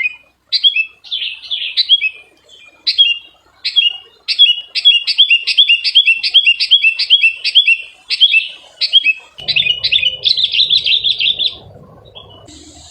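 Decoy songbird calling: a series of sharp, falling chirps, spaced out at first, then quickening to about five a second, and breaking into a fast trill that stops suddenly near the end.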